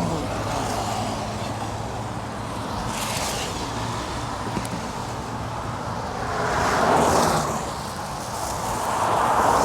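Steady hiss of heavy rain and traffic on a wet road, with passing vehicles swelling and fading twice, about six seconds in and again near the end.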